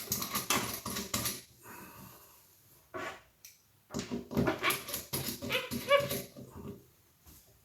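A dog vocalizing in two bouts of short whines and yelps, in the first second and a half and again from about four to six seconds in.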